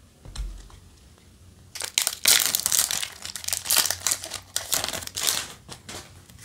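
A foil Yu-Gi-Oh! Legendary Duelists: Synchro Storm booster pack being torn open by hand, the wrapper crinkling and tearing in a dense run of crackles that starts about two seconds in and lasts about four seconds.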